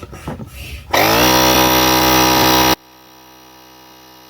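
Small electric motor whirring: it starts loud and steady about a second in, then abruptly drops to a much quieter steady hum about two seconds later and keeps running.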